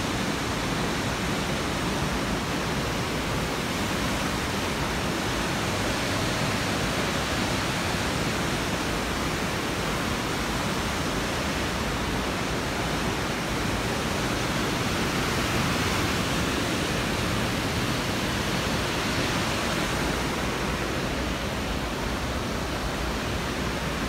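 Palovit waterfall and the mountain stream below it rushing: a steady, unbroken sound of falling water.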